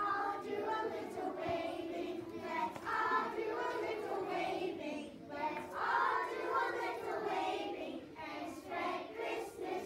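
A children's choir singing a song together in unison.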